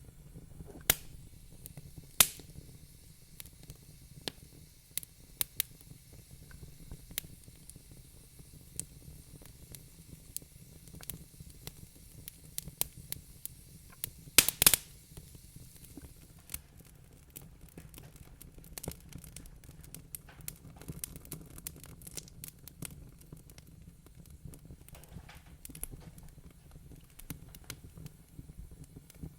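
Wood fire crackling in a fireplace: irregular sharp pops and snaps over a low steady rumble, with a loud cluster of pops about halfway through.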